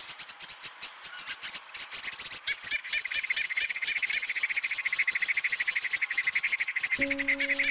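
Insects chirping in a dense chorus of rapid pulses: a shrill high band throughout, joined about two and a half seconds in by a lower, louder chirping band. Near the end, sustained music notes come in.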